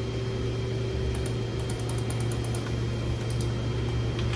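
Scattered light clicks of a computer keyboard and mouse being worked, over a steady low hum.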